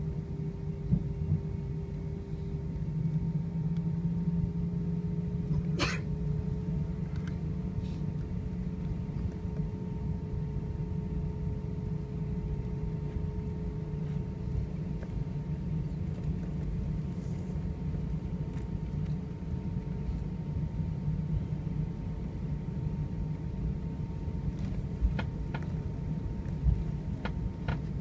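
Cabin noise of an Airbus A320 taxiing on idling engines: a steady rumble with a steady hum on top. There is one sharp click about six seconds in and a few light clicks near the end.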